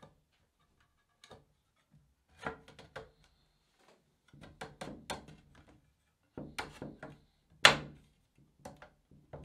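Hardwood rails knocking and clicking against each other as the stopped sliding dovetail joints are pushed and worked by hand in a dry fit. Irregular sharp knocks come in several clusters, the loudest a single knock late on.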